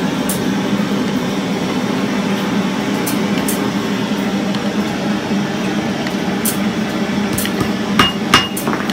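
Steady, dense metalworking clatter in a metal-bangle workshop, with a steady low hum beneath it. Two sharp, ringing metal clinks come close together near the end.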